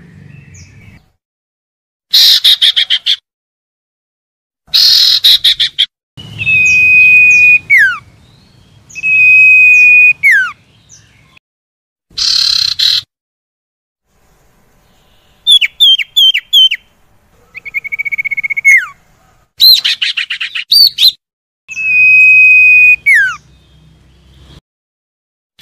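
Common iora (sirtu/cipoh) calls, one clip after another with silent gaps. Three long held whistles each end in a sharp downward slide. Between them come rapid chattering bursts, a quick run of about five short falling notes and one buzzy trill.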